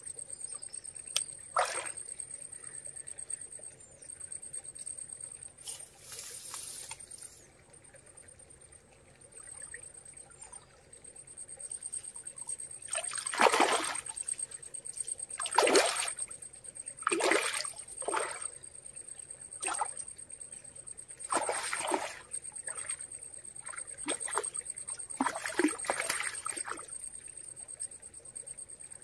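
Water splashing: one short splash near the start, then a run of louder splashes from about halfway through. A steady high-pitched whine runs underneath.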